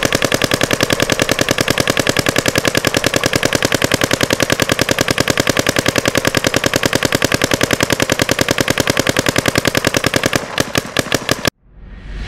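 Electronic paintball marker firing a fast, steady stream of shots, roughly ten a second. The shots turn ragged and cut off abruptly about eleven seconds in, followed by a faint rising swell at the very end.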